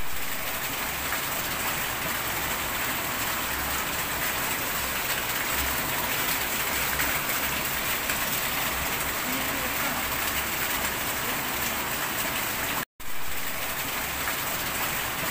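Steady rain falling onto a wet tiled floor and potted plants, an even hiss of drops without a break except for a split-second gap near the end.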